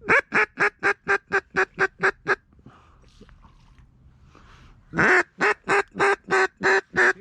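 Mallard-style duck call blown in rapid quack series: about ten quick quacks, a pause of a couple of seconds, then seven or so more, the first of them drawn out. It is the hunter calling to work incoming ducks toward the decoys.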